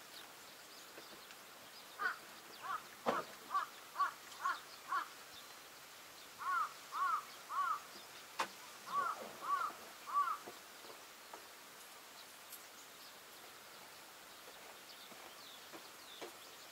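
A crow cawing in three runs of short repeated calls, with a couple of sharp knocks in between.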